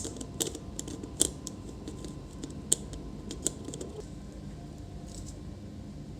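A few scattered sharp clicks and taps of small hard parts being handled during a laptop hinge repair, about four clear ones with lighter ticks between.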